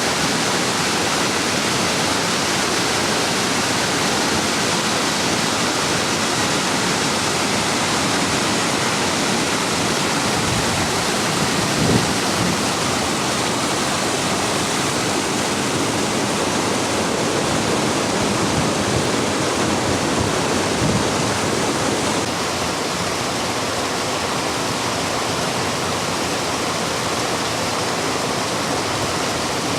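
Rain-swollen water rushing steadily down a ravine: a continuous dense rush of falling and flowing water, slightly quieter from about two-thirds of the way in.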